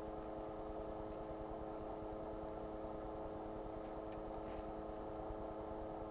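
Steady hum made of several even pitched tones with a thin high whine above them, unchanging throughout, and a couple of faint ticks about four seconds in.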